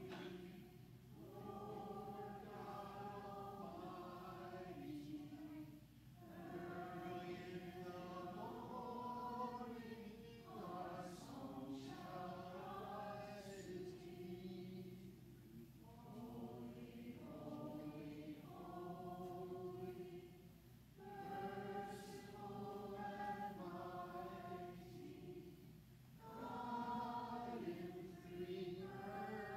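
Congregation singing the entrance hymn together, line by line with short breaks between the phrases.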